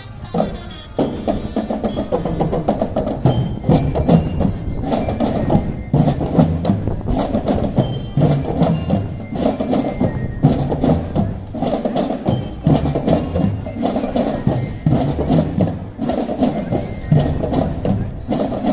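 School marching drum band playing: drums keep a fast, busy rhythm under a melody.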